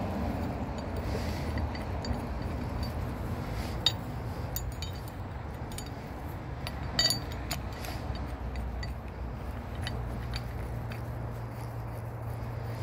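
Steel winch cable and its hook clinking and scraping as they are handled and dragged over leaf litter, with sharper metal clinks about four and seven seconds in, over a low steady rumble.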